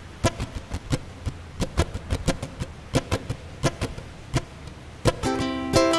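Irregular sharp clicks and taps, several a second, from walking on pavement with a handheld phone. About five seconds in, ukulele music begins.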